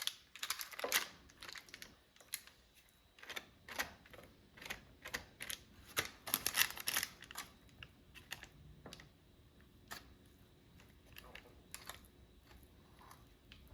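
A spatula scraping and tapping as thick fudge is moved from a bowl into a parchment-lined baking dish: irregular small clicks and scrapes, busier in the first half and sparser toward the end.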